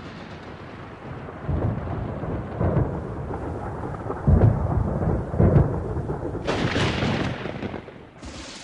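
Thunderstorm: several deep rolls of thunder over a steady hiss of rain, the rain hiss growing brighter near the end.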